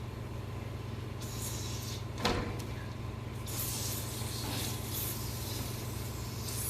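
Rinse spray hissing into a ductless mini-split's blower wheel in on-and-off spurts over a steady low hum, with a single knock about two seconds in.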